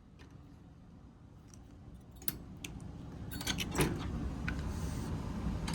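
Scattered sharp clicks and light metallic clinks and rattles from hands working a fire alarm system during its reset, with a quick cluster about three to four seconds in and a low rumble growing underneath.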